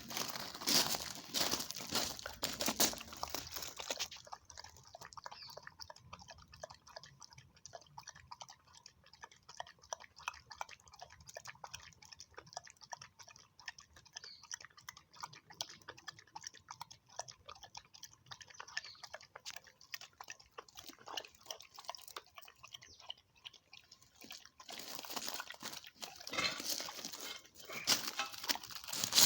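A dog eating close to the microphone, with quick crunching and chewing clicks. The crunching is louder for the first few seconds and again near the end.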